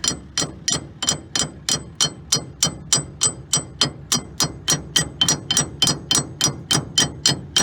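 Metal bar repeatedly striking a steel coupling pin on a combine head, a rapid steady series of blows about three and a half a second, each with a short metallic ring, knocking the stuck pin loose.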